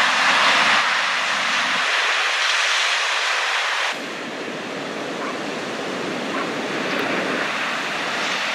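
Ocean surf: waves breaking and washing in as a steady rushing noise, with wind on the microphone. The sound drops abruptly and turns softer about four seconds in.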